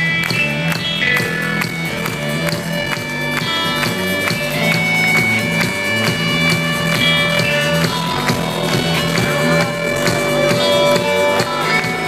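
Live band music heard loud from within the concert crowd: held melodic notes over a steady low drone.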